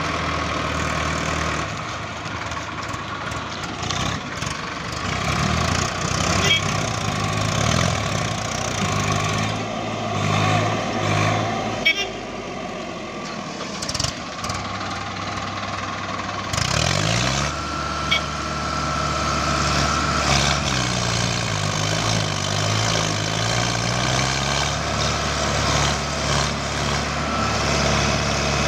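Tractor diesel engine labouring under heavy load as a Mahindra Arjun 555 with a rotavator tries to drive out of deep paddy-field mud, its pitch rising and falling again and again. About two-thirds of the way through it revs up sharply.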